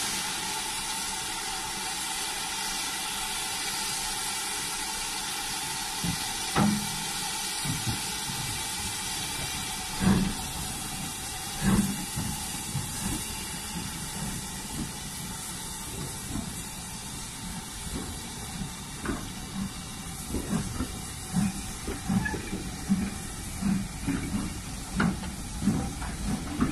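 Steam locomotive pulling away with a train: a steady hiss of steam, then exhaust chuffs starting about six seconds in, slow and widely spaced at first and coming quicker near the end as it gathers speed.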